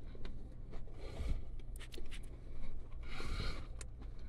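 Plastic fork scraping and poking through salad on a paper plate: scattered light clicks, and a longer scrape a little past three seconds in. A steady low hum runs underneath.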